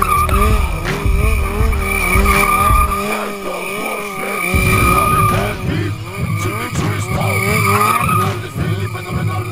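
Sport motorcycle engine held high in revs while the rear tyre squeals on concrete through tight stunt circles. The low rumble drops away for a moment near the middle, then comes back.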